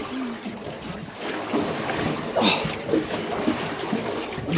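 Wind buffeting the microphone over a steady wash of sea water moving against a small boat's hull.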